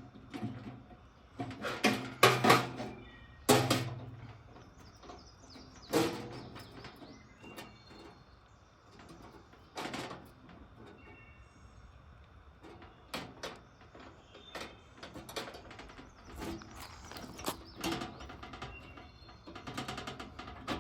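Metal rotisserie spit and skewer forks clacking and knocking in a string of separate handling sounds as a rabbit is worked onto them, the ill-fitting forks loose on the spit. Faint bird chirps now and then.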